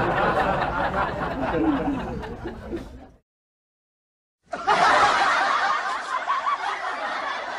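Laughter and chuckling, fading out about three seconds in; after more than a second of dead silence, laughter starts again.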